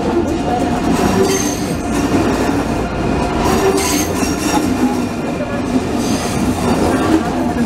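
ICE 3 (class 403) high-speed train rolling slowly past on station track, a steady rumble of wheels and running gear. Brief high wheel squeals come about a second and a half in and again near four seconds.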